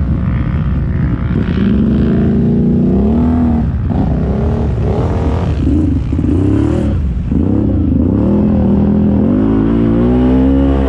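Modified 2015 Can-Am Renegade ATV's big-bore V-twin, with an HMF exhaust, revving up and down hard several times as it is ridden through deep mud. Near the end the revs climb and hold higher.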